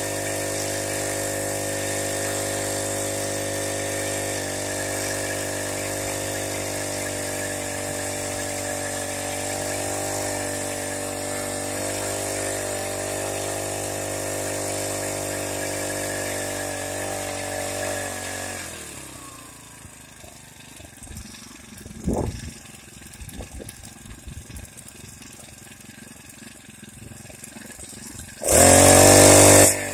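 Small motorized-bicycle engine running at a steady idle, then winding down and stopping about 19 seconds in. After that there are a few knocks, and a loud, short burst of noise near the end.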